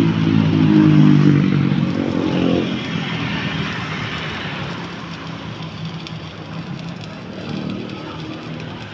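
An engine running with a steady hum that fades away about two and a half seconds in, leaving a steady hiss.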